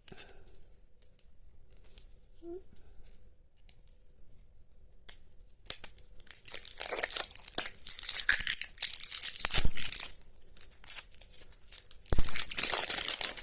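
Plastic packaging of a Toy Mini Brands surprise capsule being torn open and crinkled: a few faint handling clicks at first, then loud spells of tearing and crinkling about halfway through and again near the end.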